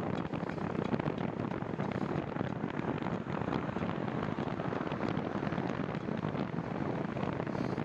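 Wind buffeting the microphone of a moving bicycle rider: a steady, rough noise with constant crackle.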